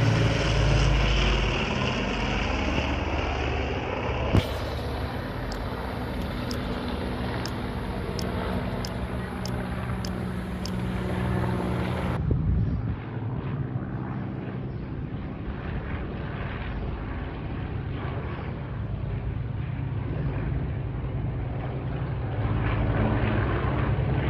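Steady engine drone with a noisy rush, changing abruptly about four and twelve seconds in.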